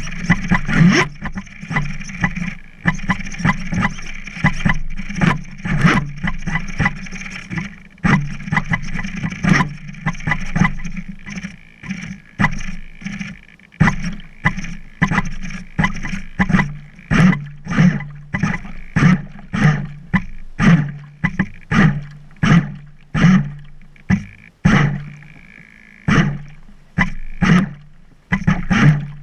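Water slapping and knocking against the hull of a stalled RC speedboat lodged in reeds, heard through the camera mounted on it: sharp knocks, irregular at first and then about one or two a second, over a steady low hum.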